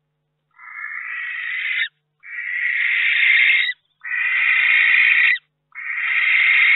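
Barn owl giving four long hissing calls in a row, each about a second and a half long with brief pauses between, each swelling slightly louder towards its end.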